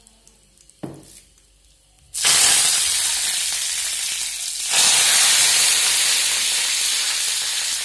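Ingredients dropped into hot oil in a kadai start to sizzle suddenly and loudly about two seconds in. The sizzling flares up again a little before the five-second mark as more is added, then runs on steadily.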